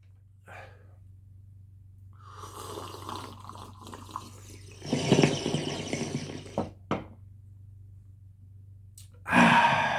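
Liquid gurgling for about two seconds, then a louder rush of noise for about a second and a half, a sharp click, and a loud breath out near the end.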